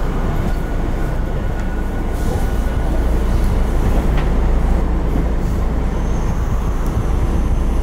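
Tokyo Metro 02 series subway car with Toshiba IGBT-VVVF traction equipment, running and heard from inside the car: a steady, heavy rumble of wheels and running gear. A faint high whine comes in about six seconds in.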